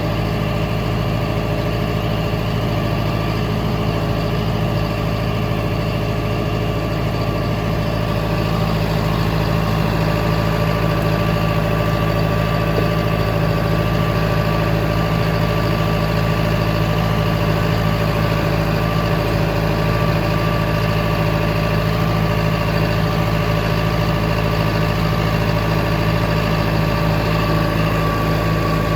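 Tractor engine running steadily at an even, unchanging speed.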